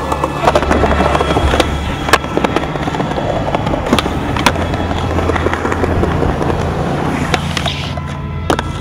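Skateboard wheels rolling on concrete with sharp pops and clacks of tricks and landings, over background music with a steady bass line.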